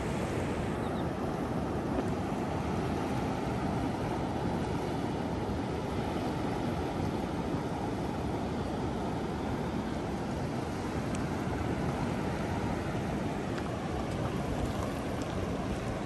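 Steady rush of ocean surf breaking and washing up the beach, with wind rumbling on the microphone.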